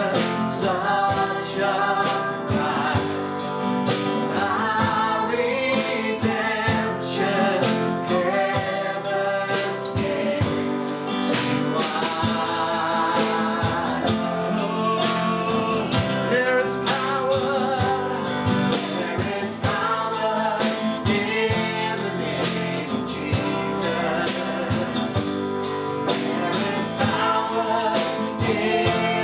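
Christian worship song: singing over guitar and a band with a steady beat.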